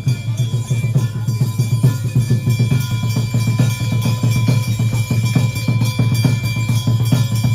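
Ritual drumming at a Hindu puja: fast, continuous drum strokes over a steady ringing tone.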